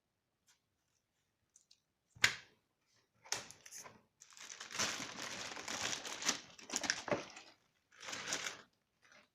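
Packaging being handled and crinkled in irregular rustling bursts, after a single sharp click, with the longest stretch of crinkling in the middle.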